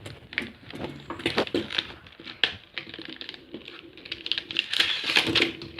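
Small irregular clicks and taps of a fidget spinner's plastic packaging being handled as its box is opened.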